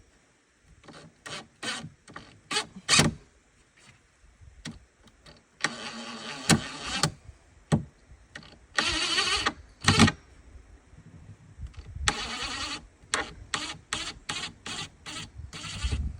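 DeWalt 20-volt brushless cordless impact driver running in three short bursts, backing screws out of wooden strapping, with sharp clicks and knocks between the bursts.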